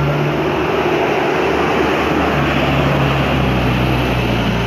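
Tanker truck's engine running as it passes close by, a loud, steady rumble.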